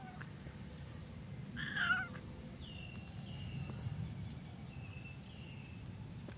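A tortoiseshell-and-white cat meows once, loudly, about two seconds in, asking for food. Several faint, thin high calls follow, each sliding down in pitch.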